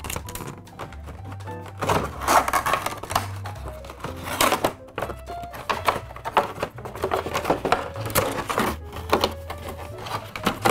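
Background music with a repeating bass line, over irregular clicks, knocks and rustles of a headset's packaging tray and cable being handled.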